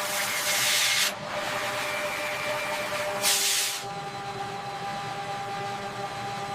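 Steady machine hum under a constant hiss, with two louder bursts of hissing: one at the start lasting about a second, and another about three seconds in.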